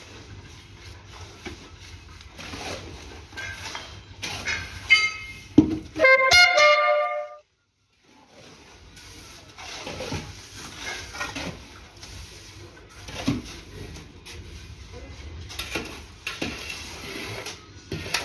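Bricklaying work with irregular knocks and scrapes of bricks and mortar. A few seconds in there is a loud, brief brass-like blare of several tones, which cuts off into about a second of dead silence.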